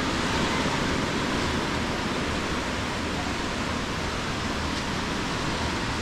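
Small waves breaking and washing up a sandy beach, a steady rushing noise.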